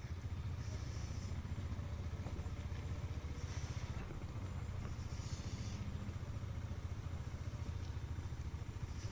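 Motorcycle engine running at low road speed, a steady low rumble heard from the rider's seat.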